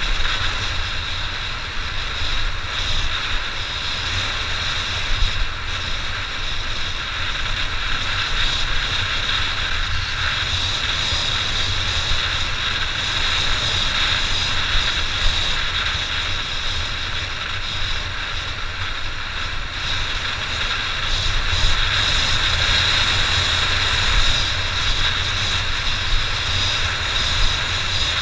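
Honda XR600's air-cooled single-cylinder four-stroke engine running steadily under way, slightly louder in the last third.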